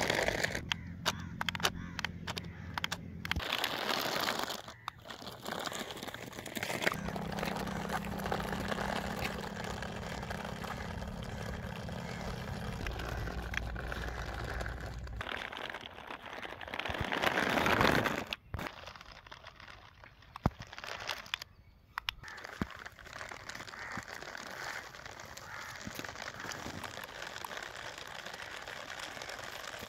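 Small toy DC motor running, with a steady hum that changes pitch in steps as its load changes, under crackling and rustling handling noise; a louder burst of noise comes about 17 seconds in.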